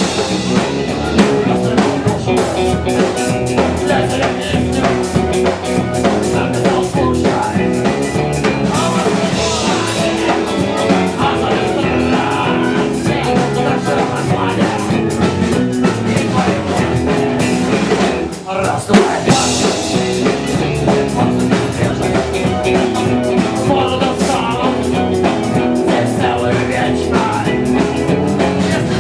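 Rock music played by a band with guitar and a drum kit keeping a steady beat, broken by a brief pause about 18 seconds in.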